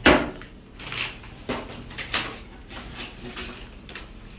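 Clear plastic bag wrapping a label printer crinkling as it is handled, in a few short rustles, after a sharp knock at the very start.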